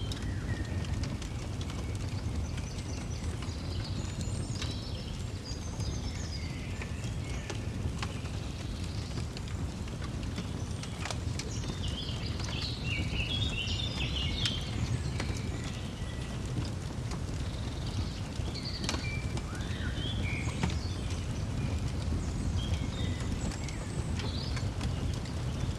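Birds chirping and twittering in short, scattered phrases, with the sharp pops and clicks of a crackling wood fire and a steady low rumble underneath.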